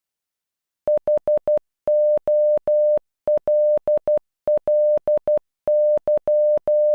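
Morse code beeps: a single steady tone keyed on and off in short and long beeps, spelling HOLLY (.... --- .-.. .-.. -.--) once, starting about a second in.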